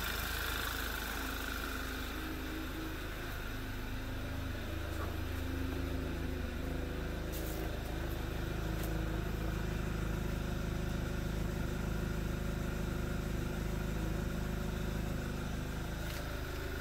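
Audi TT 2.0 TFSI (EA888) turbo four-cylinder idling steadily, its noise from the freshly replaced vacuum pump and high-pressure fuel pump roller tappet now not very loud at all. Its low hum grows stronger about four seconds in, with a few faint clicks.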